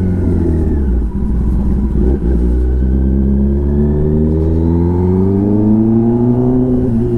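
Kawasaki Ninja ZX-10R inline-four engine through an SC Project aftermarket exhaust, running under way. The note holds steady with two brief dips about one and two seconds in, then climbs slowly in pitch as the bike pulls, easing off a little near the end.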